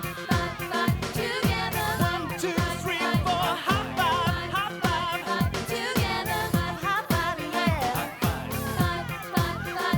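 Upbeat pop music with a steady beat and a wavering melody line.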